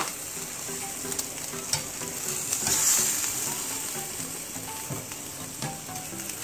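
Whole fish sizzling in oil on a hot wire grill rack as it is turned over with two knives, the sizzle swelling briefly about three seconds in. A few light clicks of the knife blades against the metal rack.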